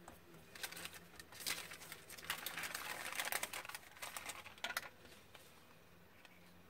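Sheet of baking paper crinkling and rustling as it is handled and folded, with many small crackling clicks, densest in the middle and stopping about five seconds in.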